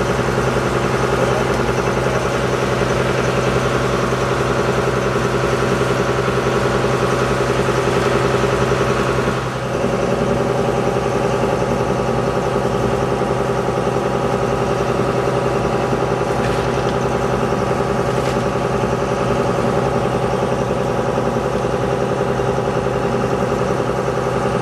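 Shrimp boat's engine running steadily, a constant hum with several held tones. About ten seconds in, the level dips briefly, the pitch shifts slightly and the lowest tone drops out.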